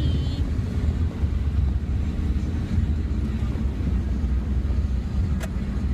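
Road and engine noise inside a moving car's cabin: a steady low rumble, with a single click near the end.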